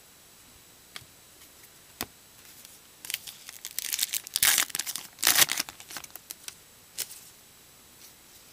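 Foil trading-card pack wrapper being torn open and crinkled. A couple of faint clicks come first, then a loud run of tearing and crinkling in the middle, with two loudest bursts.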